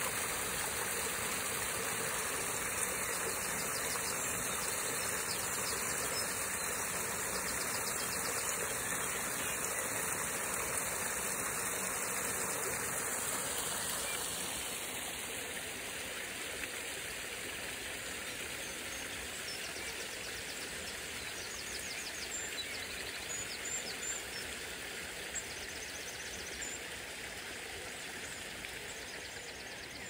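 Water splashing over rocks into a shallow river, a steady rushing hiss that drops away about halfway through. In the second half, small birds chirp faintly here and there.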